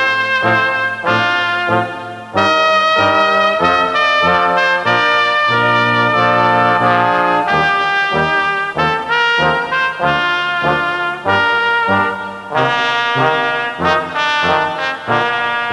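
Brass ensemble playing processional music in sustained chords that change every second or so, with a brief break a little over two seconds in before the next phrase begins.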